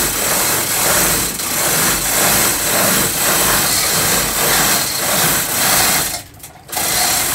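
Manual chain hoist being worked by hand to lift an engine block: the hand chain rattles and the hoist clicks in a rough rhythm of about two a second, over a steady mechanical hiss. The sound drops away briefly near the end.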